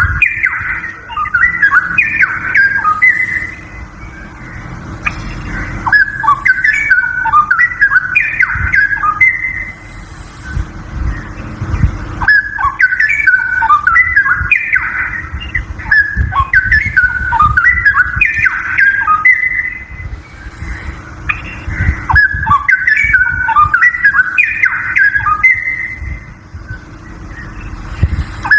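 Wild straw-headed bulbul singing loud, rich warbling phrases of a few seconds each, repeated with short pauses between them, over a low rumble.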